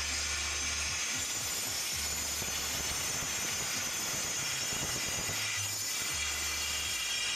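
Electric angle grinder cutting into a slab of black natural stone: a steady high whine over the gritty rasp of the disc biting the stone.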